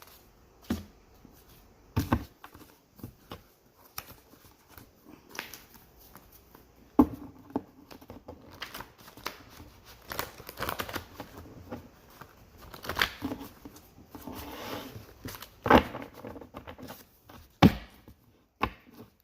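A deck of cards being shuffled and handled: irregular rustling and crinkling broken by sharp taps and snaps, the loudest about 2, 7, 16 and 18 seconds in.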